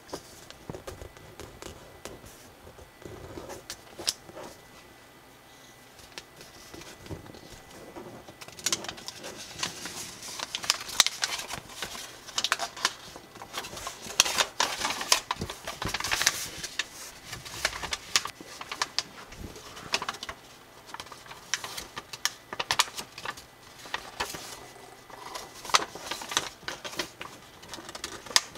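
A sheet of thin square origami paper being handled, folded and creased by hand: irregular crinkling and rustling with small clicks and scrapes of fingers running along the folds. It is fainter for the first several seconds and grows busier from about nine seconds in.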